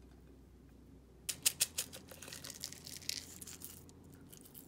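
Crisp fried onion flakes being handled and sprinkled over a bowl of ramen noodles: a quick run of sharp clicks about a second in, then a light, dry crackling patter for a couple of seconds.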